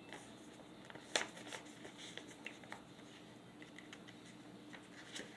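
Faint paper rustling as mini comic pages are handled, with one sharp click about a second in.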